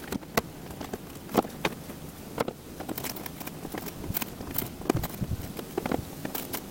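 Scattered, irregular clicks and light knocks of a bolt and socket being worked at a Jeep Cherokee's fender flare mounting hole. The hole is rusted, so the bolt will not go in.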